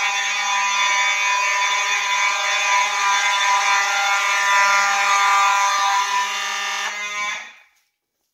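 Two Simplex mechanical fire alarm horns, one a 4903-9219, sounding together in a steady, super loud buzzing blare. They cut off about seven seconds in.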